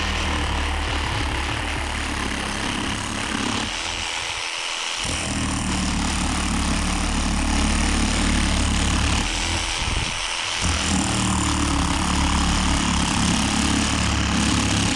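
Parkside 12 V cordless jigsaw (PSTKA 12) running and sawing, a steady motor hum under the buzz of the reciprocating blade. The low hum dips briefly twice, about four seconds in and again about ten seconds in.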